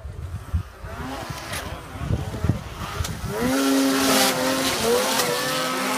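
Snowmobile engine running hard at high revs as the sled climbs the hill close by. The steady engine note comes in loudly about three seconds in and rises slightly near the end.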